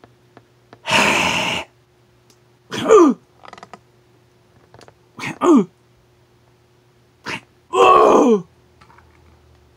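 A man voicing an action-figure fight by mouth: three short high cries that fall steeply in pitch, mixed with hissing, breathy bursts for the blows.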